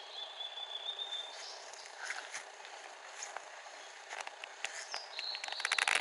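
Wild birds singing in woodland: a long, steady whistled note at the start, a few scattered chips, and near the end a second whistled note followed by a fast rattling run of clicks.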